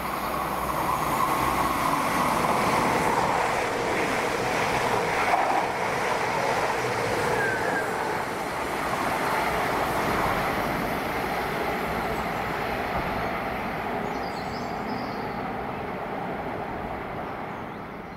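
Passenger train passing through the station: a steady wheel-and-rail rumble that builds over the first couple of seconds, holds, and dies away near the end.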